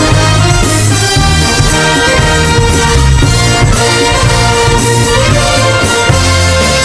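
Brass-led band playing a TV theme tune: trumpets and trombones over a stepping bass line, loud and continuous.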